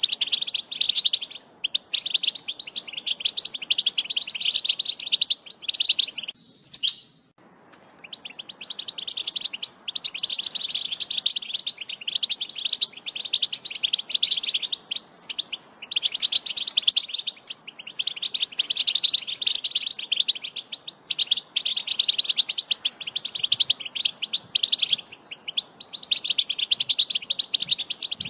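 European goldfinch song: rapid, high twittering in long phrases with short pauses, breaking off for about a second roughly a quarter of the way in.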